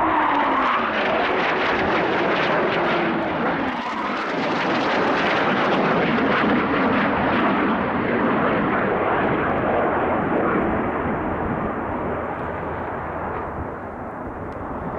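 Eurofighter Typhoon jets with twin EJ200 turbofans flying low past, a loud jet noise whose pitch falls in the first couple of seconds as a jet goes by. It eases off over the last few seconds.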